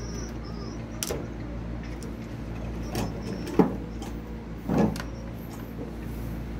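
A few short knocks and scrapes, the loudest about halfway through, over a steady low hum.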